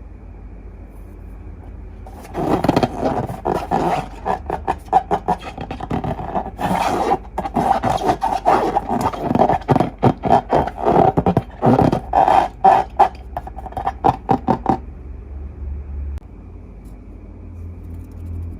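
Long rubber balloons squeaking and scraping as they are rubbed and squeezed by hand, in rapid irregular strokes that start about two seconds in and stop a few seconds before the end.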